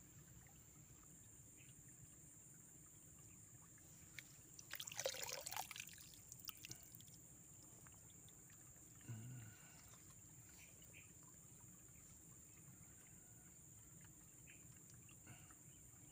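Near silence with a steady high insect buzz. About five seconds in comes a short splash and trickle of water as an arm is worked into a flooded eel burrow in a mud bank.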